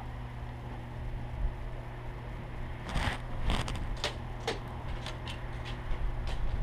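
Steady low rumble, then from about three seconds in a run of short sharp snaps, two or three a second: airsoft gunfire at an outdoor field.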